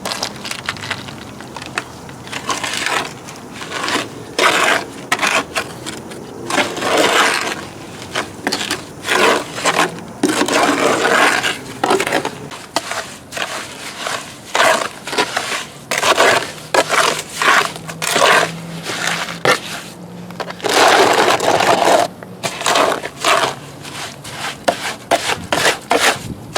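Wet concrete being mixed by hand, a tool scraping and churning through the mix in repeated, irregular strokes, with dry mix being worked into a batch that had too much water.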